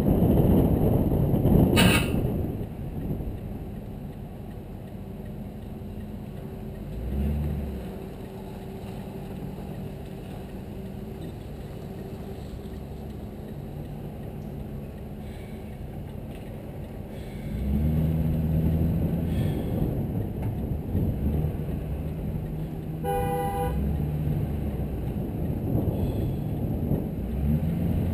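Motor vehicle driving along, its engine running under steady road noise and picking up briefly about seven seconds in and again from about eighteen seconds. A short horn toot sounds about twenty-three seconds in.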